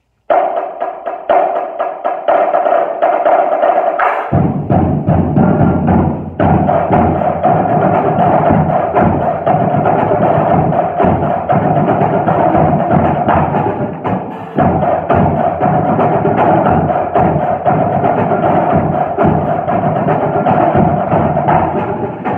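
High school drum line playing together: rapid, tightly packed snare and drum strokes, with low drum notes joining about four seconds in.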